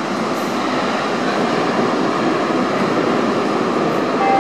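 Stadtbahn light-rail train running in the tunnel before the station, a steady rumble that grows slightly louder as it approaches.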